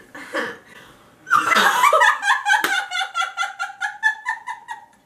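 Young women laughing: a short giggle at first, then, about a second in, a long high-pitched laugh in rapid, even pulses that fades near the end. A single sharp clap comes partway through.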